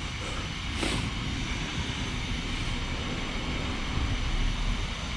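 12S-converted Losi DB XL-E, a large 1/5-scale electric RC buggy, running around a yard: a steady noise of its brushless drivetrain and tyres, with a brief louder rush about a second in.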